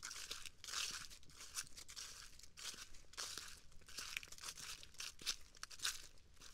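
Faint, irregular crunching and rustling of footsteps on a forest trail.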